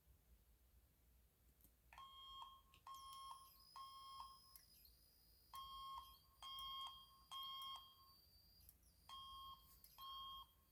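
A fire alarm sounding faint temporal-three evacuation beeps, starting about two seconds in: groups of three short mid-pitched beeps, about one a second, with a longer pause between groups. A faint high-pitched whine runs alongside the beeps.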